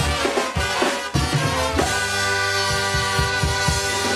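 Mexican banda playing an instrumental passage live: trumpets and saxophones over a drum kit, with the horns holding a long chord from about two seconds in.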